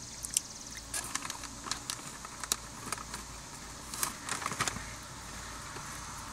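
Plastic snack bag of caramel corn puffs crinkling and crackling in a run of short, sharp rustles as a hand rummages inside it for a piece, easing off about five seconds in. A steady low hum sits underneath.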